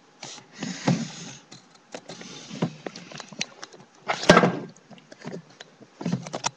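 Close handling noises at the microphone: rustling, scraping and clicks in irregular bursts, with a heavy bump about four seconds in.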